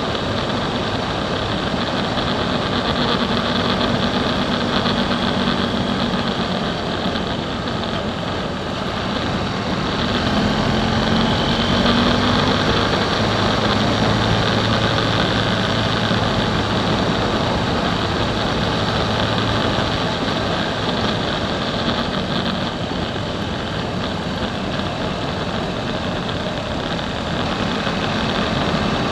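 Motorcycle engine running at road speed with wind noise rushing over the camera. The engine note shifts slightly in pitch as the speed changes.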